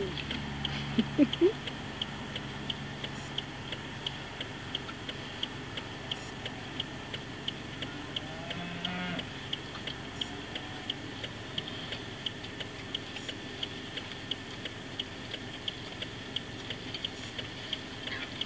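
Regular high ticking, about two or three sharp ticks a second, from an unseen source. A faint moo from a Holstein dairy cow comes about eight seconds in.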